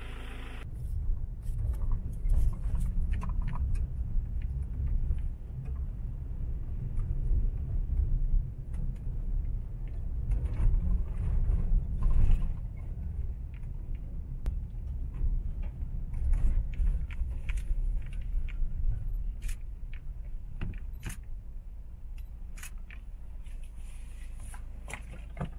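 Inside a vehicle driving over a rough dirt track: a low, steady rumble of the ride, with frequent rattles and knocks as it jolts over the ruts.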